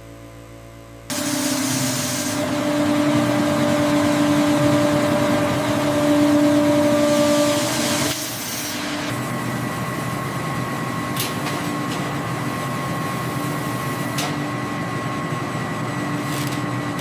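Factory machinery running: a loud, steady mechanical hum and hiss with whining tones starts suddenly about a second in. It shifts to a higher whine about eight seconds in, with a couple of short clicks later.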